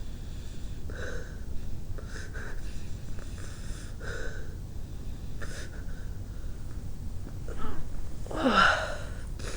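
A person's short catching breaths, several in a row as a deliberately induced sneeze builds, then a sneeze near the end with a voice that drops in pitch.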